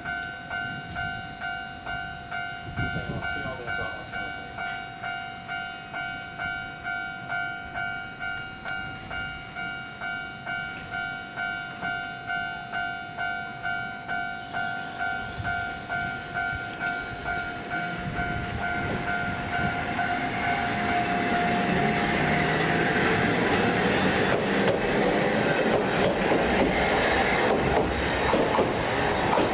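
Level-crossing warning bell ringing, a two-tone electronic chime pulsing a little over once a second, while a Hankai Tramway tram approaches. About two-thirds of the way in, the tram's wheels running over the rails grow loud as it passes over the crossing and drown out the bell.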